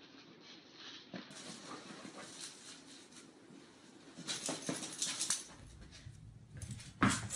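A corgi playing with a toy in its dog bed: faint rustling and scuffling with small dog sounds, busiest about four to five seconds in, and a louder bump near the end.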